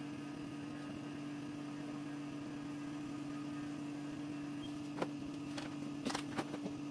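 Steady low electric hum of a small motor running, with a few light clicks and taps about five seconds in.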